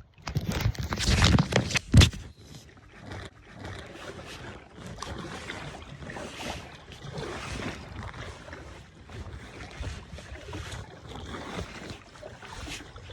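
Kayak being paddled: a loud rustling stretch ending in a sharp knock about two seconds in, then a steady wash of water with soft, regular swells as the paddle strokes.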